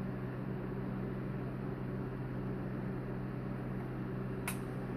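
Steady low electrical hum with a few even tones, and a single sharp click about four and a half seconds in.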